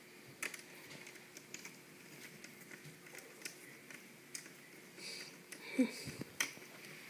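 Faint, irregular small clicks and taps of a precision screwdriver and fingers working on a laptop's screen screws and bezel, with a louder brief handling noise about six seconds in.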